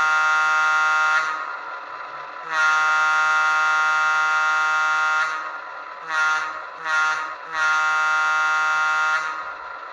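Diesel locomotive air horn sample played by the sound decoder of an HO scale EMD SD7 model through its small onboard speaker: two long blasts, two short toots, then one more long blast.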